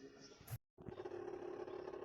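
A sharp click and a brief dropout to silence where the audio cuts, followed by a steady low hum.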